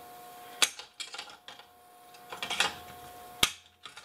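Pliers clicking and snapping against a circuit board and its soldered-on metal heat sink while a part is worked loose: a few scattered clicks, a cluster around the middle, and one sharp snap near the end.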